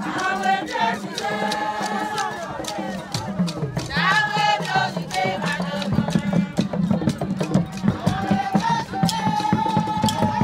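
Voices singing over a quick, steady beat of rattles and drums.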